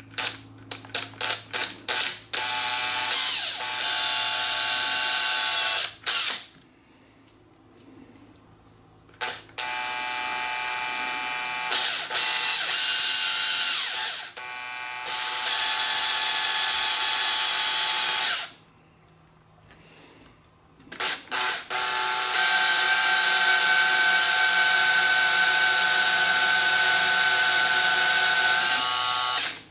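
Electric drill boring a hole through an aluminum mount in stops and starts. A few short trigger blips come first, then runs of a few seconds each with brief pauses between them, and a last long run of about seven seconds with a steady whine.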